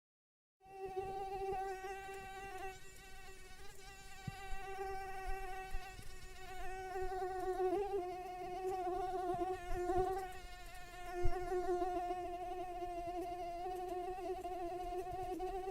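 A mosquito's wingbeat whine: a steady high-pitched buzz at one pitch with overtones, wavering slightly, starting just under a second in after a brief gap of silence. A short low thump sounds about two thirds of the way through.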